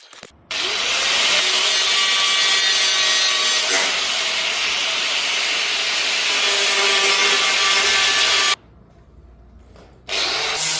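A power tool running steadily on car body metal. It starts abruptly about half a second in, cuts off about 8.5 seconds in, and starts again near the end.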